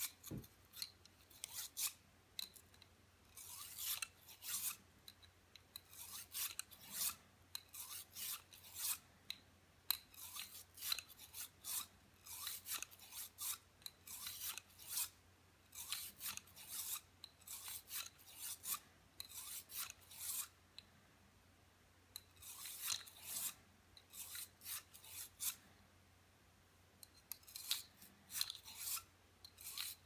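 Quick, short scrubbing strokes on parts of a Beretta 92FS pistol being cleaned, coming in bursts separated by brief pauses.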